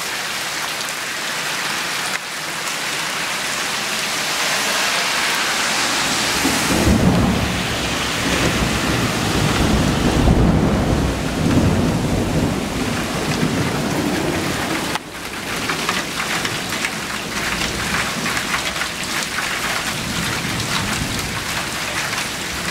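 Heavy rain pouring steadily, with a long low rumble of thunder from about six seconds in, following a big lightning flash; the rumble lasts some eight seconds and ends abruptly.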